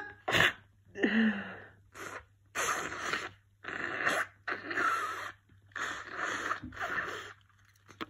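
A person sneezing right at the start, then a run of about six noisy, congested breaths, each under two seconds long, from a stuffed-up nose during an allergy attack.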